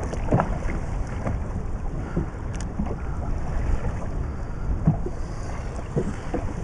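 Wind rumbling on the microphone over the wash of the sea around a small inflatable boat, with a few light knocks.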